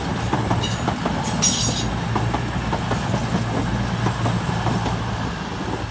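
CrossCountry Voyager diesel multiple unit running past along the platform, its underfloor diesel engines giving a steady low hum, with wheels clicking over the rail joints. A brief high-pitched squeal comes about one and a half seconds in.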